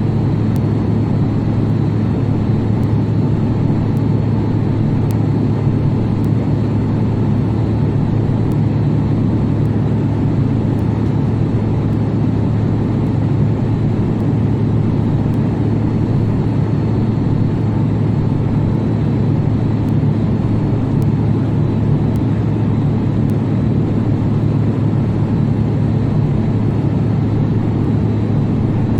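Aircraft in flight heard from inside the cockpit: a steady, unbroken drone of engine and airflow noise, heaviest in the low end, with a faint high steady tone above it.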